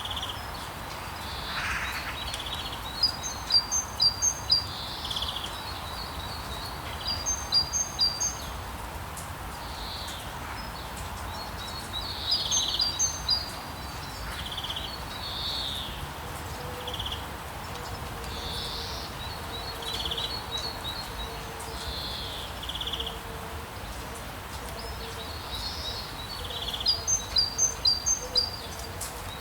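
Songbirds chirping in several clusters of quick, short, high notes, with single calls between them, over a steady hiss of rain and town ambience.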